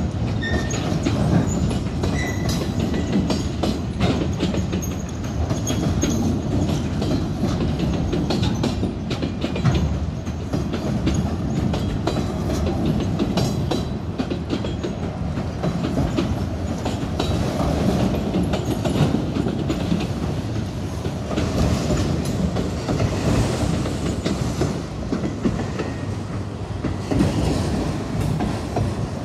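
Freight train's autorack cars rolling past: a steady rumble of steel wheels on rail, with repeated clickety-clack as the wheels cross rail joints.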